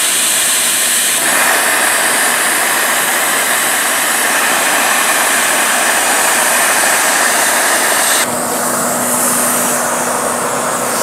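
Plasma cutter torch (Saber 70 CHP, set to 20 amps) cutting 5 mm aluminium plate with a loud, steady, harsh hiss of arc and air jet. About eight seconds in the hiss drops a little and changes, with a faint low hum: the arc has gone out and the torch's air keeps blowing.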